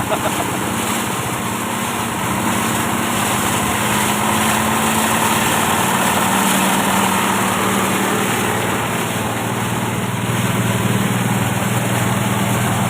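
Small engine-powered rice thresher running steadily.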